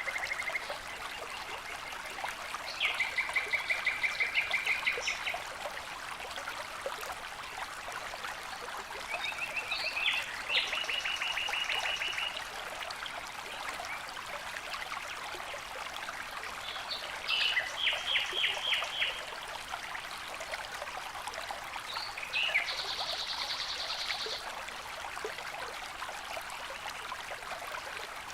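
Steady rush of falling water, with a songbird singing four short trilled phrases of rapidly repeated notes, one every six or seven seconds.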